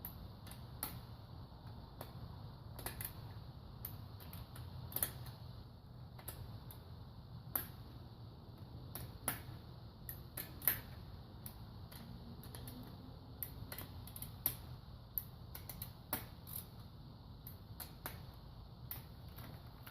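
Scattered sharp metallic clicks and taps of hand tools while the camshaft bearing cap bolts are being fitted and tightened, over a steady low hum.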